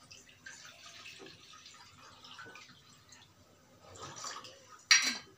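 Chilled water poured from a steel bottle into a glass bowl, a faint trickling and splashing that swells about four seconds in. A short sharp knock comes near the end.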